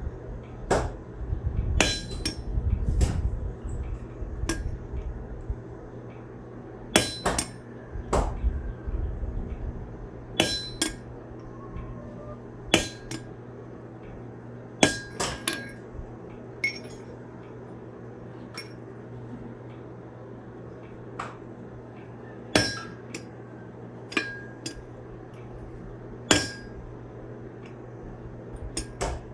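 Hand hammer striking a forged railroad-spike steel piece on an anvil: single, irregularly spaced blows, some in quick pairs, each with a short metallic ring, over a steady low hum.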